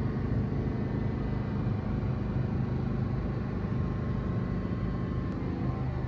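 An R46 subway train standing at a station platform, its equipment giving off a steady low hum and rumble with a few held tones.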